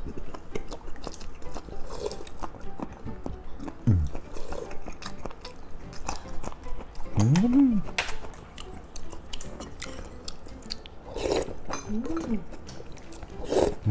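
A person chewing food close to the microphone, with wet mouth clicks and a few short hummed "mm" sounds. Near the end there is a slurp as noodles are sucked up from a bowl of spicy beef soup.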